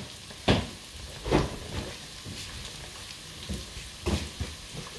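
Food sizzling in a pan on the stove as it is stirred, with a spoon knocking against the pan three times.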